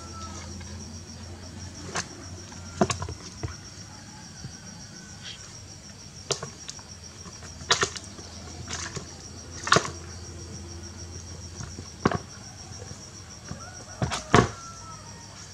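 A cricket trills steadily with a high, finely pulsing tone. Over it come about eight sharp taps and knocks on a plastic basin as a kitten paws at a crab, the loudest a double knock near the end.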